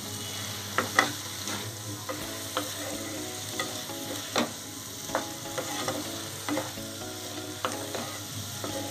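Potatoes and fenugreek leaves sizzling in oil in a nonstick kadhai while a wooden spatula stirs them, knocking and scraping against the pan every half second to a second.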